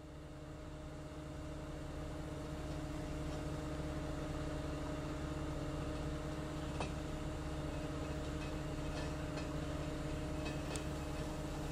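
A large engine idling steadily at an even pitch, growing louder over the first few seconds and then holding level, with a few faint clicks.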